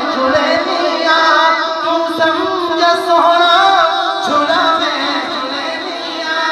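Devotional kalam sung by a single voice in a slow, ornamented melody, with long held notes that bend up and down.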